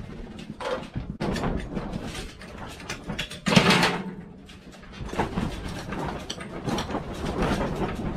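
Irregular metal knocks, clanks and rattles as a tiller attachment is worked onto a garden tractor's hitch with a floor jack, with one louder, longer scraping clatter about three and a half seconds in.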